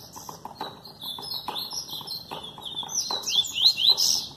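Double-collared seedeater (coleiro) singing: a fast run of high, quick up-and-down whistled notes, stopping right at the end.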